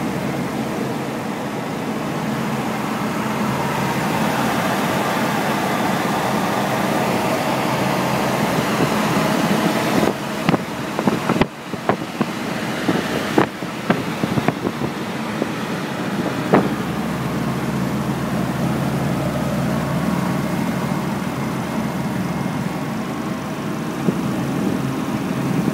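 Steady road, wind and engine noise inside a classic Citroën DS cruising at motorway speed. Sharp knocks and clicks come in a cluster from about ten to seventeen seconds in.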